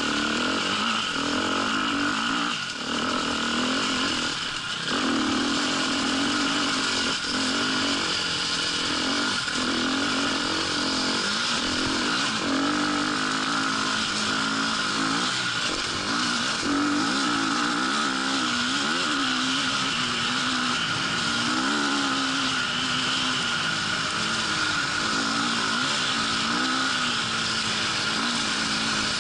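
Dirt bike engine being ridden, its revs rising and falling continually as the throttle is worked, with a steady hiss over it.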